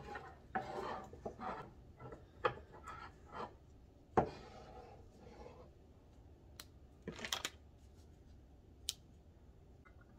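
Small decorations being handled and set down on a wooden tiered tray: scattered light knocks and rustles, with a sharper knock about four seconds in and a short cluster of taps around seven seconds.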